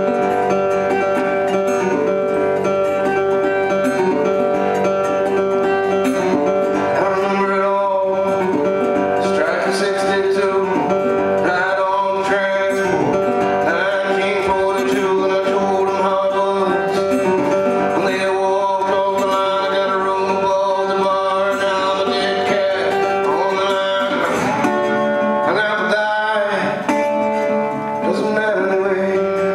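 Acoustic guitar played over sustained open-string drone notes, with a man singing from about eight seconds in.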